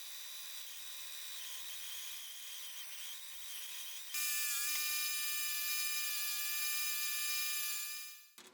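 A small motor whirring at a high pitch. It steps up louder about four seconds in and stops shortly before the end.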